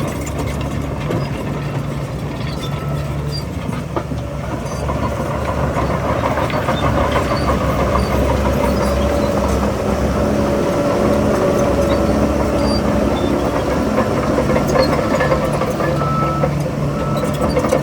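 Heavy diesel earthmoving machinery running steadily, its engine note holding through, getting a little louder about six seconds in.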